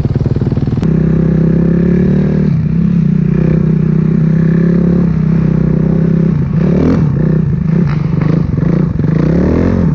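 A 450 cc four-stroke single-cylinder dirt bike engine running steadily close by, then revved up and down several times in the last few seconds.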